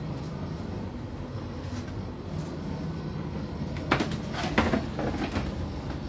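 Plastic laundry basket being picked up and handled, knocking and clattering three or four times about four seconds in, over a steady low machine hum.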